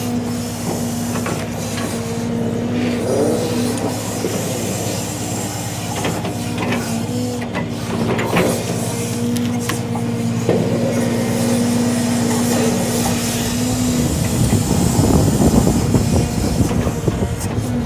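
Hydraulic knuckleboom loader on a Peterbilt log truck at work, with the truck's diesel engine running steadily to drive the hydraulics. A higher tone comes and goes as the boom moves, with a few knocks. About fourteen seconds in, the steady hum gives way to a rougher, louder churning.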